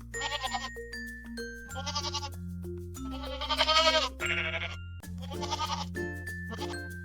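Goat bleating repeatedly, five or six wavering calls, the longest and loudest about three seconds in, over cheerful background music.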